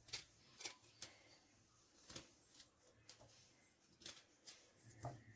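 Faint, irregular taps and clicks of hand work with kitchen items during food preparation, about six spread over the few seconds.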